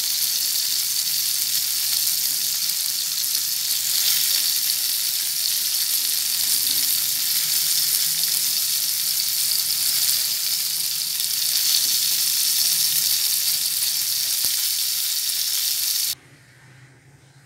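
Oil sizzling steadily as halved, spice-stuffed tinda (round gourd) shallow-fry in a frying pan. The sizzle cuts off suddenly near the end.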